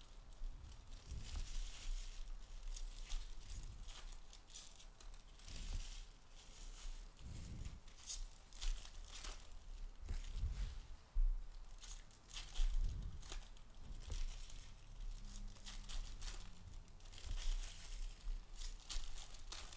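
Foil wrappers of Topps baseball card packs being torn open and crinkled, with irregular rustling bursts as the cards are handled and a few soft thumps.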